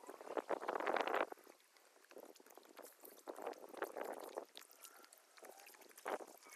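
Small waves lapping and gurgling at the lake's edge in uneven surges, the strongest about a second in.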